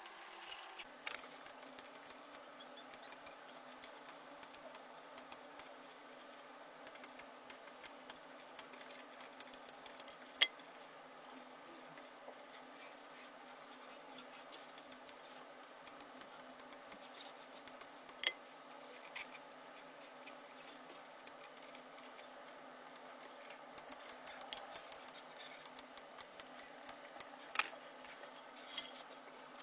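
Faint rubbing and handling noises with a few isolated sharp clicks, over a low steady hum.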